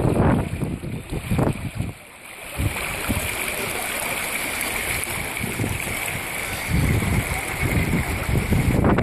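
Floodwater flowing down a flooded street, a steady rushing hiss, with wind buffeting the microphone in gusts at the start and again near the end.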